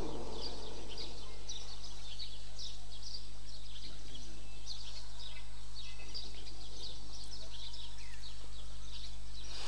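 Small birds chirping busily in quick, high, short notes over a steady low electrical hum.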